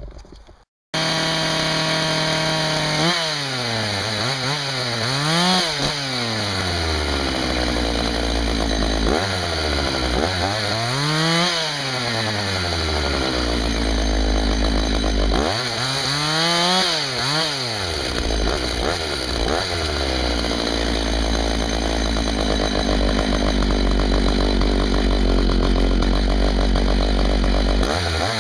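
Husqvarna 61 two-stroke chainsaw running, starting abruptly about a second in. Its engine speed rises and falls several times as it revs and loads in the cut while bucking firewood, then holds steady at high revs near the end.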